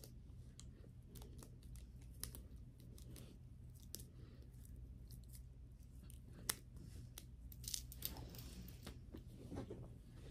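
Faint scattered clicks and light scratchy handling sounds of small hair jewelry being worked with the fingers, one sharper click about six and a half seconds in, over a low steady hum.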